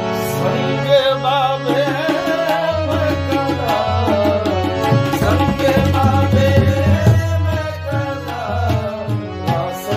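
Qawwali music: tabla drumming, with a deep low drum tone from about three seconds in, over a held harmonium melody, with singing.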